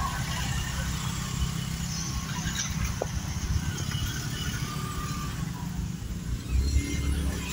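Several small motor scooter engines running at low speed as the bikes move off in a line, a steady low rumble with a louder swell near the end.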